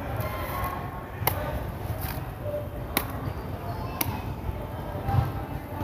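Machete chopping into the stalk of a bunch of saba bananas to cut off the hands: sharp knocks of the blade. Three strokes stand out, about a second or two apart, with lighter knocks between.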